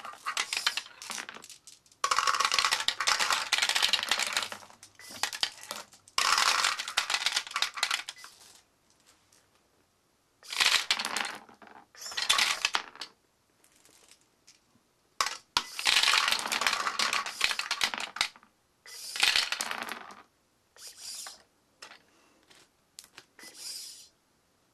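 Plastic Marble Mania marble run with marbles clattering down its track in bursts one to three seconds long, with quiet gaps between, as a motor-driven gate lets them through in batches. The clattering gets fainter and more scattered near the end.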